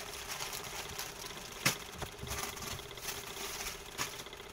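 Rustling and handling of packaged goods in cardboard boxes, with a sharp knock about a second and a half in and a smaller one near the end, over a steady low hum.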